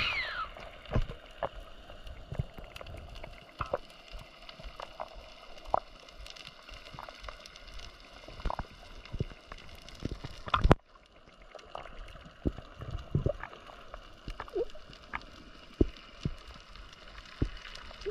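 Water sloshing and gurgling, with scattered small clicks and pops and one sharp knock about ten seconds in.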